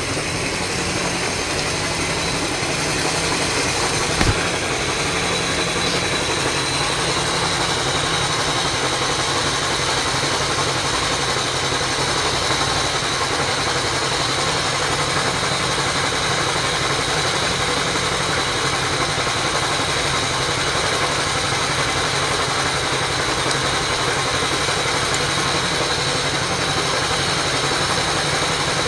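Water pump engine running steadily at a constant speed, feeding the hose that fills the fish holding pool. A single short knock about four seconds in.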